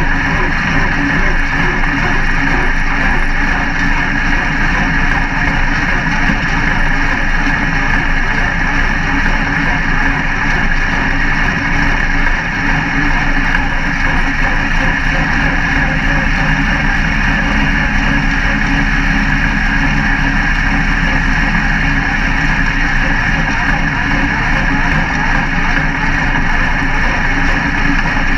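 Dirt-track race car's engine idling steadily, heard from inside the cockpit.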